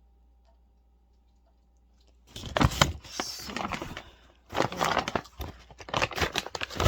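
Gift packaging being handled, crinkling and tearing in dense, irregular crackles that start about two seconds in after a quiet pause.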